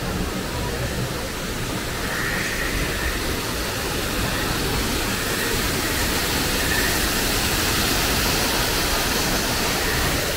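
Rushing water of waterfalls cascading over rocks into a stream, a steady hiss that grows louder a few seconds in.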